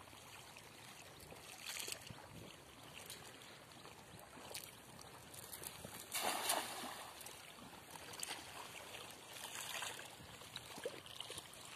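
A hand-thrown cast net, its edge lined with small weights, lands flat on the river with a short splash about six seconds in. Faint background noise and a few softer brief sounds before and after.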